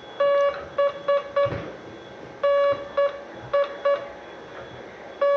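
Morse code tone sent on a key, spelling the letter B (dah-dit-dit-dit): one long beep followed by three short ones, sent twice, with a third B starting near the end.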